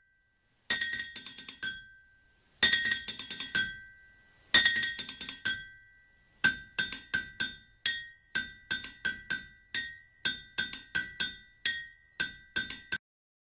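Music: a tinkling, bell-like tune of struck notes, three slow ringing chimes followed by a quicker run of plinking notes that stops abruptly near the end.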